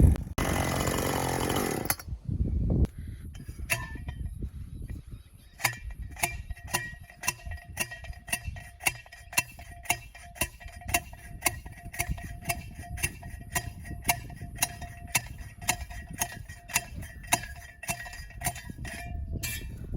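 A loud steady noise for about two seconds, then a metal ratchet clicking about twice a second, each click ringing briefly: a fence wire strainer being wound tight with its tension handle.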